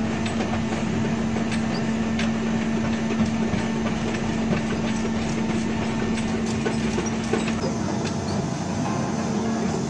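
Heavy machinery running steadily: a constant droning hum under a continuous rattling clatter, with scattered sharp clicks.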